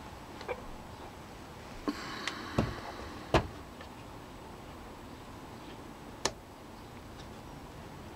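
OO-gauge Hornby Ivatt 2-6-0 model locomotive, fitted with a five-pole motor armature, running slowly along the track with a faint steady running noise. A few sharp clicks from the wheels over rail joints and points, the loudest a little past three seconds in and another about six seconds in.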